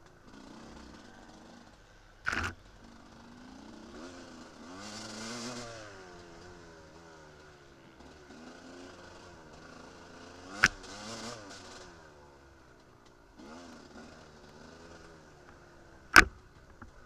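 Enduro motorcycle engine revving up and down, its pitch rising and falling repeatedly. Three sharp knocks about two, ten and sixteen seconds in, the last the loudest.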